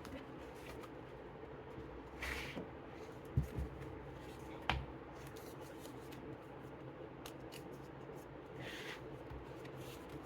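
Paper and card handled as the flaps and pages of a lift-the-flap book are lifted and turned: soft rustling swishes, with a few light taps about three to five seconds in.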